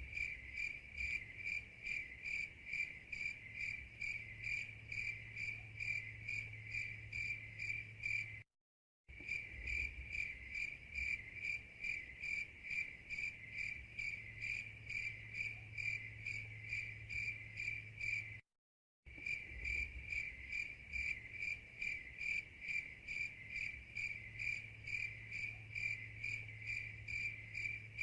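Crickets chirping in a steady, even rhythm of a few chirps a second, the stock 'crickets' cue for awkward silence. The sound cuts out completely for about half a second twice, where the loop restarts, over a faint low hum.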